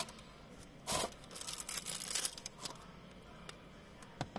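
Plastic packaging crinkling and rustling as it is handled: a short burst about a second in, then about a second and a half of denser rustling, and a couple of light clicks near the end.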